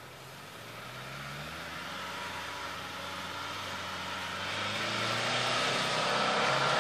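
Suzuki SJ413's 1.3-litre four-cylinder petrol engine running under load as the jeep drives up a slippery snow-covered hill, growing steadily louder as it comes closer.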